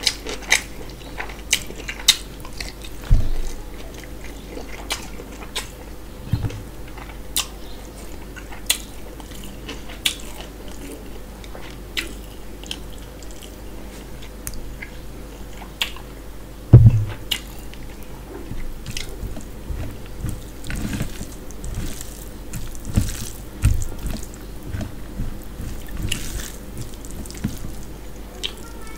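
Close-miked eating by hand: chewing and biting with many sharp wet mouth clicks and smacks. A few dull thumps on the table come through, the loudest about two-thirds of the way in.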